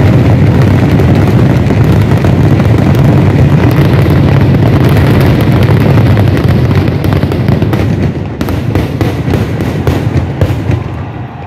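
A Kerala temple fireworks barrage (vedikkettu): firecrackers and aerial shells going off so fast that they merge into one very loud, continuous low rumble of explosions. From about eight seconds in the barrage thins into separately heard bangs and grows quieter.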